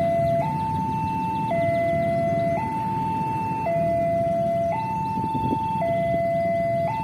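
Railway level-crossing warning alarm sounding a steady electronic two-tone signal, switching between a lower and a higher note about once a second, over a low, even rumble.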